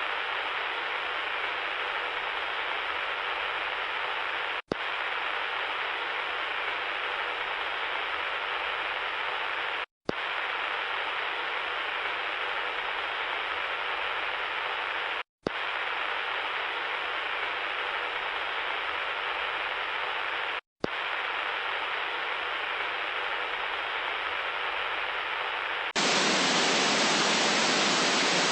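Steady electronic static hiss, thin and mid-pitched, cut off for an instant four times, about every five seconds. Near the end it switches to a louder, brighter static.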